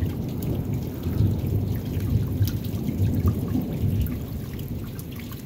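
Thunder from a receding storm, rumbling low and slowly fading, with scattered drips of rain close by.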